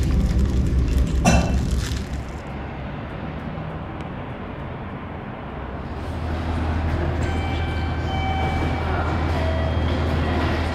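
A light clink of tableware about a second in over café clatter. It fades out, and from about halfway through a train's steady low rumble comes in, with faint thin whining tones at a railway station.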